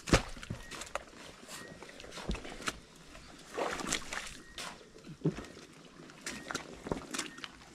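Rubber boots squelching and sloshing through thick wet mud, with a sharp knock right at the start and scattered smaller knocks of wood.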